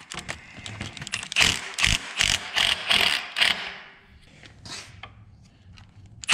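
Cordless impact driver with a socket on an extension, run in a series of short trigger bursts about three a second to loosen the clamp bolt on the clutch arm, then mostly quiet for the last couple of seconds.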